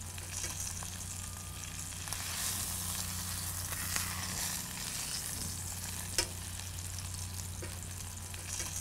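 Floured trout frying in butter and sage in a pan, a steady sizzle, with a sharp click about six seconds in.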